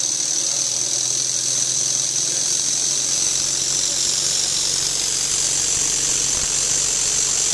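Small student-built compressed-air engine running on shop air fed from a blow gun: a steady high hiss of air rushing through it over a faint low hum of the engine turning, measured at roughly 1,400 rpm. The hiss dips slightly in pitch midway and rises again near the end.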